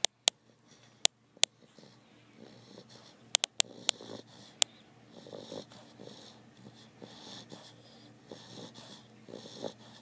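Sleeping bulldog snoring and wheezing in rough, rhythmic breaths, mostly in the second half. In the first few seconds a string of about nine sharp clicks, louder than the snoring, cuts in.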